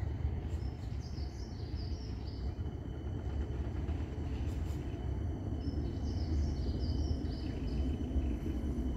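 A small songbird sings twice, each phrase a quick run of high chirps stepping downward, over a steady low rumble of background noise.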